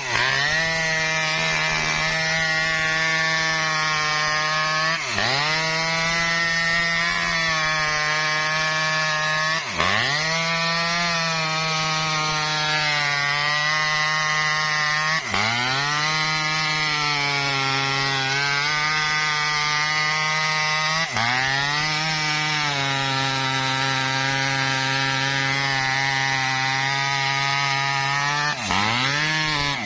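Chainsaw cutting through mahogany wood, its engine running at a steady high pitch. About every five seconds the pitch briefly sags and then climbs back, five times in all.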